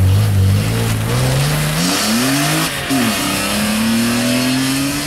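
BMW M3 engine revving hard as the car accelerates away from a standing start on a slalom course. The pitch climbs, falls back about two seconds in, dips again briefly near three seconds, then climbs steadily again.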